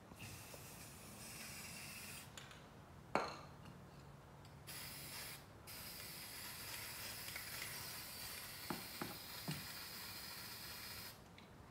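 Aerosol spray paint can hissing as paint is sprayed onto the water surface, in three bursts: about two seconds, a short one, then a long steady spray of about five seconds near the end. A sharp click comes just before the second burst.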